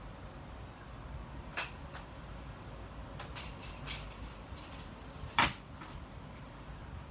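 Light plastic clicks and knocks as LEGO robots are handled and set down on the floor of a plastic toy arena: a few scattered taps, the loudest knock about five and a half seconds in.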